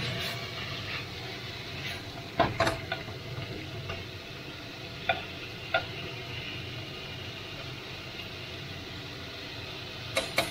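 Chicken, bell pepper and onion stir-frying in a nonstick wok-style pan, a steady sizzle with a few sharp knocks of the spatula against the pan, mostly in pairs.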